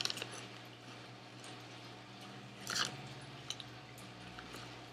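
Crispy Lay's cheddar and sour cream potato chips being chewed, quietly, with one short louder crackle a little under three seconds in.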